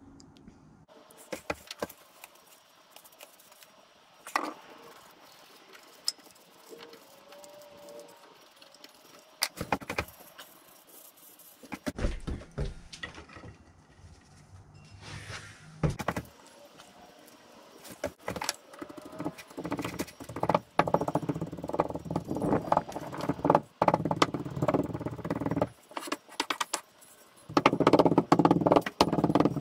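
Foundry green sand being shaken through a riddle over a molding flask, with scattered taps and scrapes, then packed down with a wooden rammer: a fast run of dull thuds from about two-thirds of the way through, loudest near the end.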